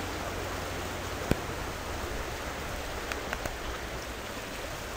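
Steady noise of rain and of the flooded river rushing beneath the bridge, with one sharp knock about a second in.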